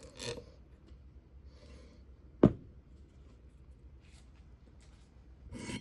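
Faint handling noises of work on a workbench with metal parts while a fixture is unbolted, and one sharp knock of something set down on the bench about two and a half seconds in.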